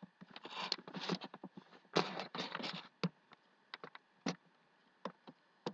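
Footsteps crunching through a thin layer of snow over dry fallen leaves: several uneven steps in the first three seconds, then only a few scattered light clicks and crackles.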